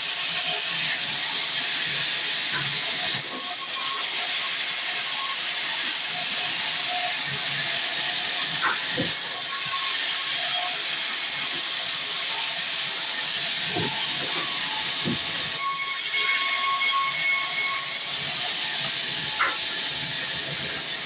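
Sawmill band saw running through wood, a steady hissing noise with a few faint whining tones and occasional light knocks.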